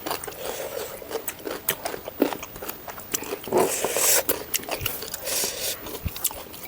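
Close-miked eating: a person biting and chewing food, with irregular crisp crunches and wet mouth clicks.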